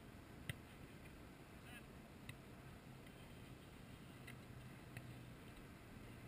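Footballs being struck during goalkeeper drills, heard as a few short, sharp knocks at a distance, the loudest about half a second in, over a faint low steady hum.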